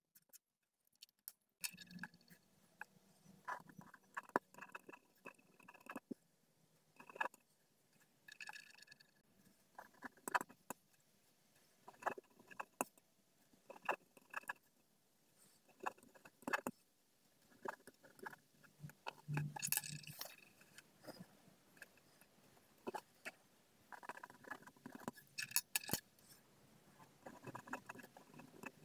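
A pen writing on paper: a string of short, faint scratching strokes and taps as words are written one after another, some strokes with a brief squeak.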